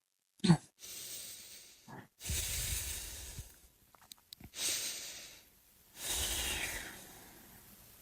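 A person coughs once, then takes three heavy, noisy breaths about two seconds apart; the last breath carries a faint whistling note.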